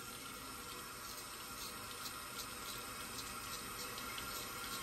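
Faint, steady hiss of water running from a bathroom tap.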